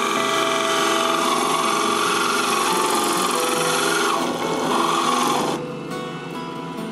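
Gemstone being ground on a spinning 100-grit faceting lap, a steady rasping hiss of the stone cutting the main facets, which drops away about five and a half seconds in as the stone comes off the lap.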